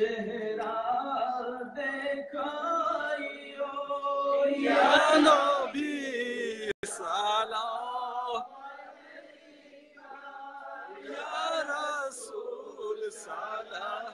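Male chanting of a devotional Islamic naat, the melody bending and held on long notes. It is loudest about a third of the way in, cuts out for an instant just before the middle, and runs softer for a while after.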